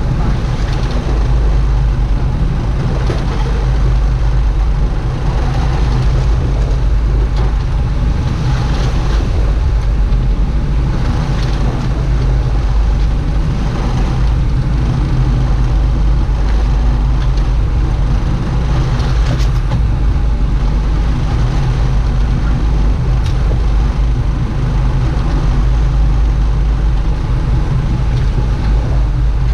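Fishing boat's engine running steadily: a constant low drone with a steady rushing noise over it.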